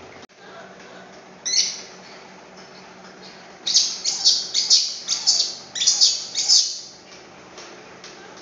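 Baby macaque screaming: one shrill cry, then a rapid string of about eight shrill screams in quick succession.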